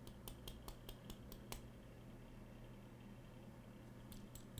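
Faint runs of light, quick clicks, about five a second. The first run lasts about a second and a half and a second run starts near the end. They come from handling the lock parts of a disassembled Medeco M3 while working a stuck pin back down.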